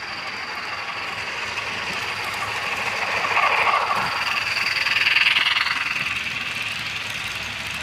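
Model railroad train running past close by: the locomotive's running sound swells as it goes by and eases as the cars follow, with a thin steady high whine over it.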